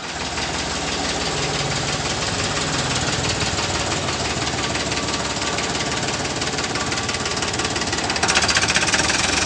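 Diesel engine of a brand-new Farmtrac 45 tractor, a three-cylinder, running steadily as the tractor is driven. It gets louder about eight seconds in as the tractor pulls away.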